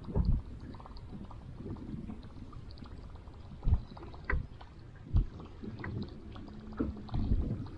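Small waves lapping against a boat's hull: soft, irregular splashing with a few louder low slaps spread through.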